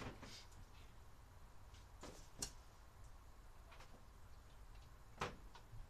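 Near silence: quiet room tone with a few faint, separate clicks and knocks, the clearest about two and a half seconds in and again about five seconds in.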